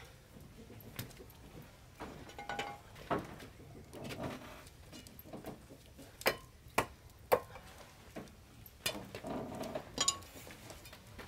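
Scattered sharp wooden knocks and cracks, three loud ones in quick succession a little past the middle, with some scuffling around them.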